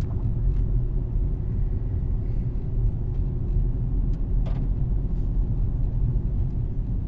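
Steady low rumble of a car driving, heard from inside the cabin: engine and road noise, with one faint click about four and a half seconds in.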